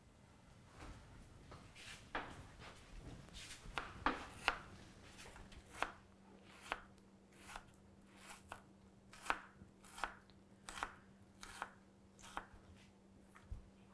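Knife chopping on a cutting board: a run of unhurried single strokes, about one a second. A faint steady hum comes in about four seconds in.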